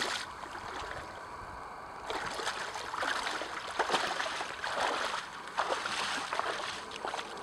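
A person wading through shallow water, each stride a splash and slosh, roughly one step a second. It is quieter for the first couple of seconds, then the splashing steps come steadily.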